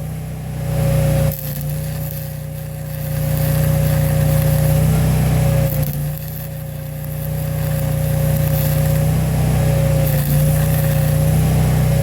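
Stick-welding arc crackling and hissing in three spells, the longest near the end, over a steady engine hum with a constant whine.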